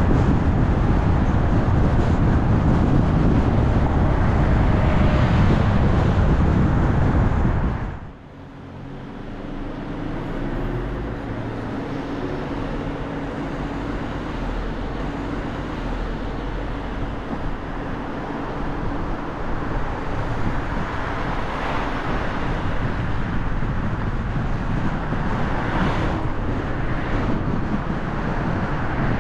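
Moving car with steady road and wind rush for about eight seconds. The sound then drops abruptly to quieter street traffic with a low, steady engine hum.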